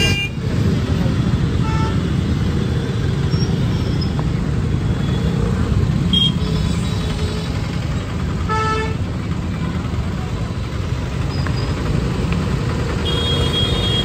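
Dense street traffic with a steady rumble of engines, and several short vehicle horn toots.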